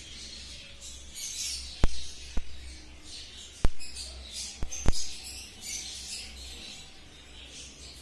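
Small birds chirping and squeaking in short high calls, with five sharp clicks between about two and five seconds in, and a low steady hum underneath.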